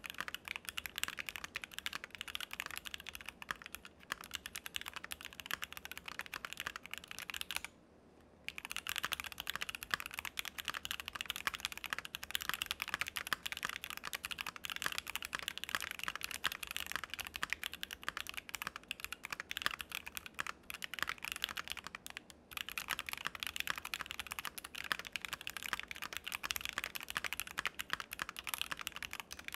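Continuous fast typing on a Keychron Q2 mechanical keyboard with a steel plate and factory-lubed Akko Jelly Black linear switches: a dense stream of clacky keystrokes, with a brief pause about eight seconds in.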